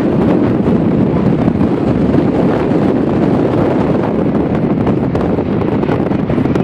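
Steady rush of wind and road noise from a car driving along, with heavy wind buffeting the microphone.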